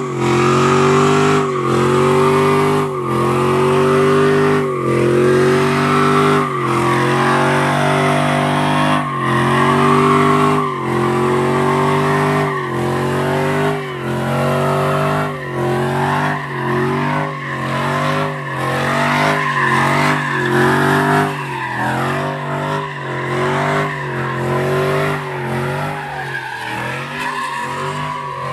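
Pickup truck doing a burnout and donuts: the engine is held at high revs, its pitch dipping and climbing back again and again as the spinning rear tires squeal and hiss. The dips come quicker in the second half, and the sound grows a little fainter near the end as the truck pulls away.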